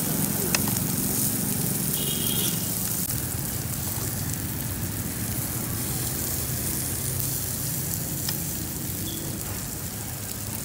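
Pork belly slices sizzling steadily on a tabletop barbecue grill, with a couple of light clicks of metal tongs over a low background hum.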